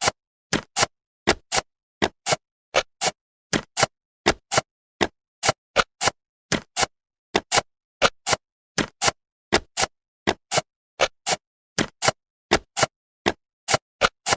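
Jigsaw-puzzle sound effects: a short click or snap each time a piece drops into place, two or three a second, with silence between.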